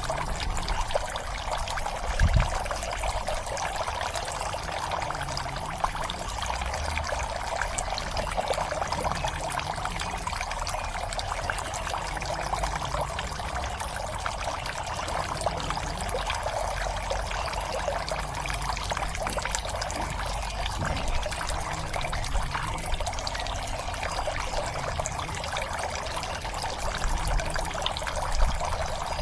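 Water pouring and trickling steadily into a pond, a continuous splashing. There is a brief low thump about two seconds in and another near the end.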